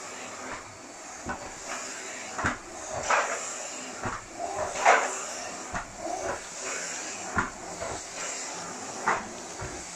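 Irregular knocks and scratchy scuffs as a Norwegian Forest Cat kitten bats at and grapples a fluffy toy on a carpeted cat tree, paws and claws striking the platform and sisal post, over a faint steady hiss.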